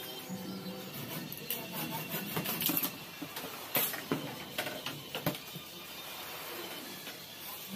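Handling noise of a plastic pipe being worked on a table: irregular light clicks and knocks from a tape measure, a pencil being put down and a plastic end fitting against a PVC pipe, the sharpest about four seconds in.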